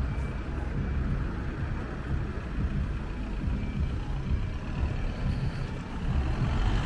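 Town-centre street ambience: a steady low rumble of road traffic.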